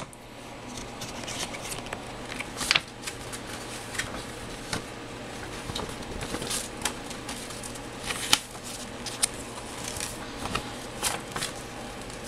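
Cellophane-bagged plastic model-kit runners and a paper instruction booklet being handled: irregular crinkling and rustling with sharp clicks, the loudest nearly three seconds in and again a little past eight seconds.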